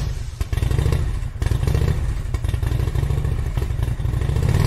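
Motorcycle engine running loudly, its exhaust pulses coming as an uneven low beat.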